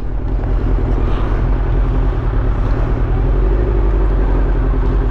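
Honda CB400 Super Four's inline-four engine running steadily and evenly, smooth again after a carburettor rebuild with new pilot jets, slow jets and float valves.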